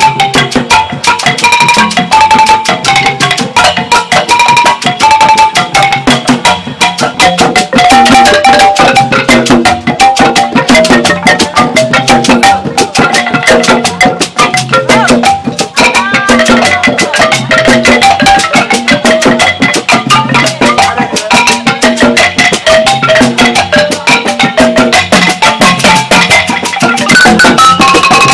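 Traditional African percussion ensemble: several large wooden xylophones struck rapidly with mallets in repeating melodic figures over hand drums, without a break.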